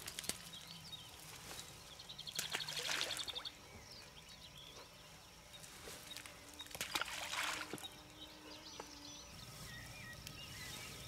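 Two soft splashes, about two and seven seconds in, as handfuls of groundbait are thrown into still water. Birds chirp faintly near the end.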